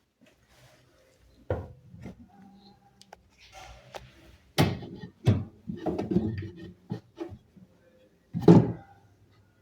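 A series of irregular knocks and clunks, like wooden parts being handled, with louder ones about a second and a half in, several around the middle, and one near the end.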